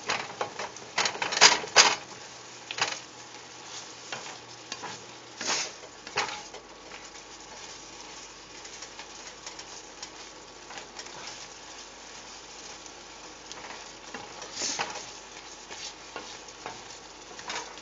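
Asparagus in a thickening garlic sauce sizzling in a stainless steel pan while a spatula stirs it continuously and scrapes the pan bottom to keep it from sticking. Several louder scrapes come in the first two seconds, with a few more later.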